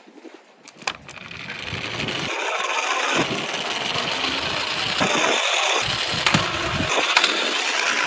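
Die-cast Tomica minicars rolling down a slope: a rattling roll of small wheels that builds up over the first couple of seconds and then holds, with sharp clicks of cars knocking against each other and the track.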